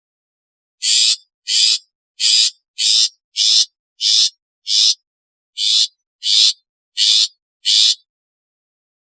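Long-tailed shrike giving a series of eleven short, harsh calls, roughly one every two-thirds of a second, with a slightly longer pause midway.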